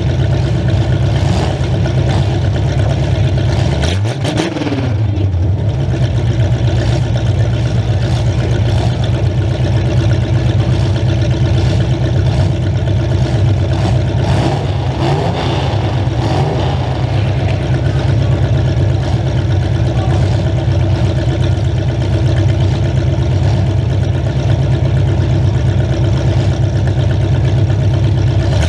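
A demolition derby car's engine idling loudly through open exhaust stacks that come straight up through the hood, heard right beside them. The driver blips the throttle briefly about four seconds in and again around fifteen seconds, the pitch rising and falling back to idle.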